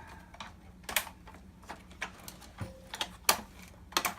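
Irregular sharp clicks and taps of plastic projector parts being handled and pried during disassembly, about nine of them, the loudest a little past three seconds in.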